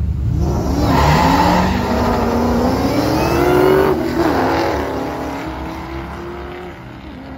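A drag-racing car's engine accelerating hard, its pitch climbing for about four seconds, dropping once at a gear change, then fading as the car moves away down the strip.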